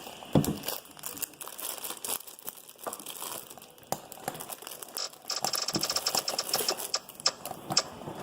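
Homemade slime being mixed in a bowl: irregular sticky clicks and squelches, which turn into a fast, even run of clicks about five seconds in.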